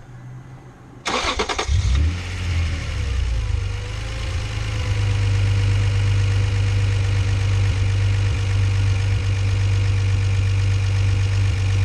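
Acura NSX V6 engine cranked by the starter about a second in, catching, revving briefly and settling into a steady idle. It runs with no belt noise, with the belt off the idler pulley, which points to the idler pulley or AC compressor as the noise source.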